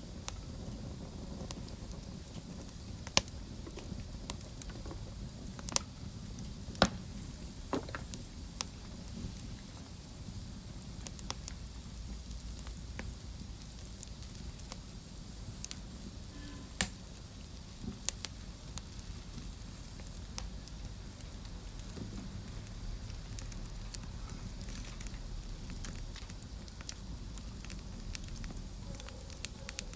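Wood fire burning in a fireplace: a steady low rumble of flames with irregular sharp crackles and pops, a few loud pops in the first half.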